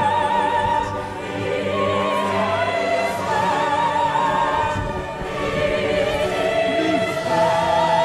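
Several voices singing together in long held notes with a wide wavering vibrato.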